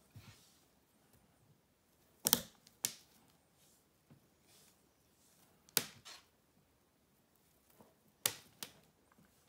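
Sharp clicks and knocks in pairs, roughly every three seconds, as green twine is whipped around a net's lead line with a plastic netting needle on a wooden table.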